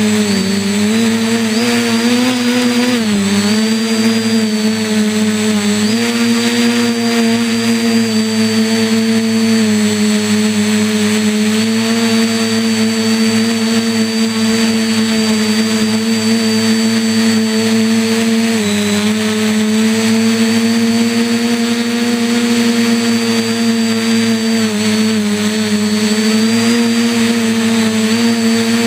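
Quadcopter's electric motors and propellers whining steadily, heard up close from a camera mounted on the frame. The pitch dips and recovers a few times as the throttle changes.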